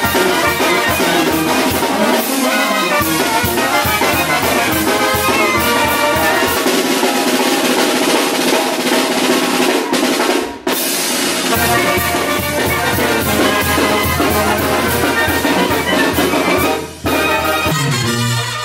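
Live banda sinaloense music played up close: tuba and other brass, clarinet and drums with a steady beat. It breaks off for a split second twice.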